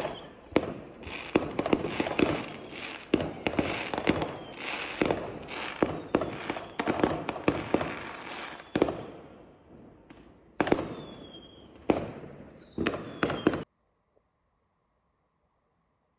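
Fireworks going off: a rapid, irregular run of sharp bangs and crackles, with a couple of whistling shells near the end. The sound cuts off suddenly about three-quarters of the way through.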